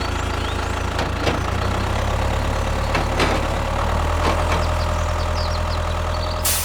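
Mini tractor engine running steadily at a low, even pitch, with a few short clicks over it; it cuts off suddenly at the end.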